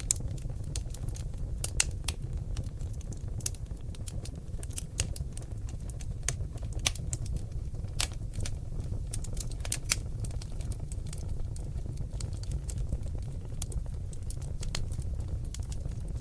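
Oak logs burning in a fireplace, crackling and popping. Irregular sharp pops, a few of them louder, sound over a steady low noise from the flames.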